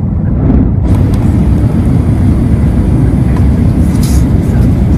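Cabin noise of an Airbus A320 on approach: a steady, loud low rumble of the engines and the air rushing past the fuselage, heard from inside at a window seat over the wing. A higher hiss joins about a second in, with a brief louder hiss near the end.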